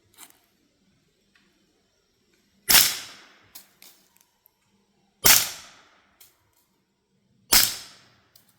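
Three suppressed 9mm shots from a CZ Scorpion Evo 3 S1 carbine fitted with a Dead Air Mojave 9 suppressor, fired about two and a half seconds apart. Each shot is a sharp report with a short fading tail, and there is no supersonic crack because the rounds are 147-grain subsonic Hornady.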